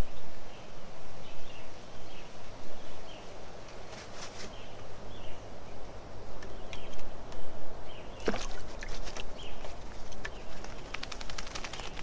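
Birds calling in the open air: a short chirp repeated every second or so over a steady background hiss, a sharper sound about two-thirds through, then a quick run of clicks near the end.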